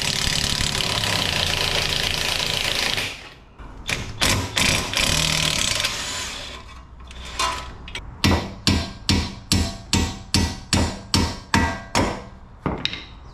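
A pinch bolt at a car's ball joint being worked out. A power tool runs loudly for about three seconds, then comes a few scattered knocks, and from about eight seconds in a hammer strikes steadily about a dozen times, roughly three blows a second, driving the bolt out.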